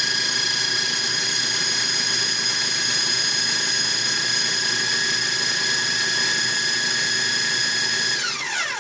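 Small electric food processor running at full speed, a steady high motor whine as it blends a soft avocado mixture, then winding down with falling pitch near the end.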